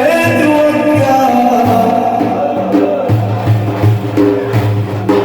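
Devotional Sufi praise singing: a male voice holding long, ornamented sung lines over a steady beat of hand drums.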